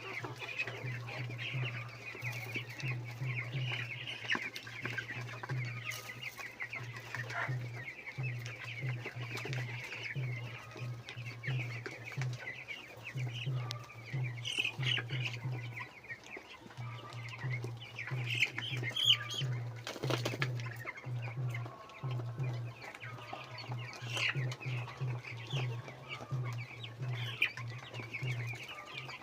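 A flock of chickens clucking and calling over one another, many short overlapping calls throughout, with a low steady hum underneath.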